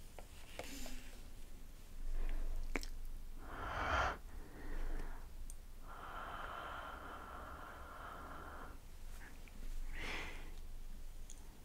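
A woman breathing slowly out through an open mouth right against the camera lens and microphone, as warm 'haa' breaths to fog the lens. There are several exhales, the longest lasting nearly three seconds.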